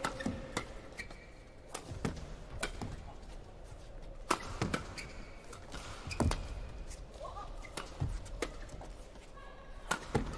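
Badminton rackets striking a shuttlecock in a fast men's doubles rally, a sharp hit every second or two, with court shoes squeaking on the hall floor between shots.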